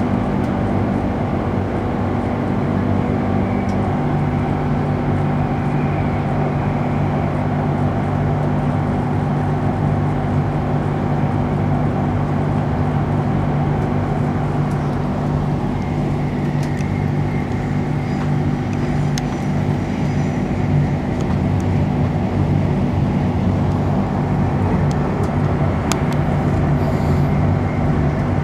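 Interior running noise of an electric express train cruising on elevated track: a steady hum with several low motor tones, one of which steps down in pitch about four seconds in. A few light clicks come later.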